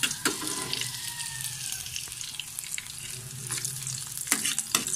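Chopped garlic sizzling and crackling in hot oil in a wok as it is sautéed, while a ladle stirs it and clinks and scrapes against the pan, most often near the end.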